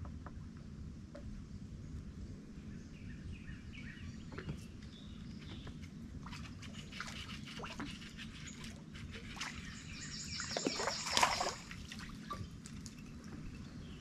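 Water lapping and trickling against a small fishing boat, with scattered small drips and clicks. About ten seconds in there is a louder splash of about a second and a half.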